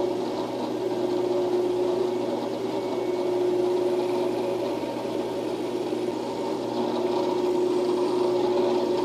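Drill press running steadily with a steady hum, a small twist bit boring a pin hole into a hardwood block.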